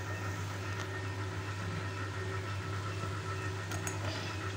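A steady low hum, with a couple of faint light clicks, one about a second in and another near the end.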